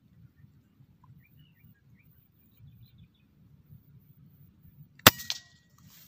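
Air rifle fired once, a sharp crack about five seconds in, followed a moment later by a weaker second knock and a brief ringing tone.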